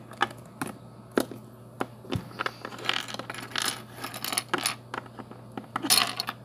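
Small hard plastic toy figures and their miniature furniture clicking and clattering as they are picked up and set down on a tabletop, in a quick irregular run of sharp clicks and short clatters.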